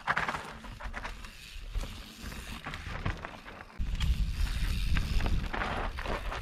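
Wind buffeting the action camera's microphone, mixed with rustling and scattered clicks. The low buffeting grows much heavier about four seconds in.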